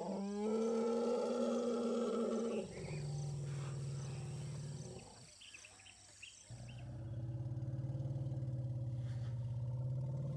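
Asian elephant calls: three long, steady, pulsing vocalizations of a few seconds each. The first is higher, rising quickly at the start; the next two are deeper, with a short quieter gap between them.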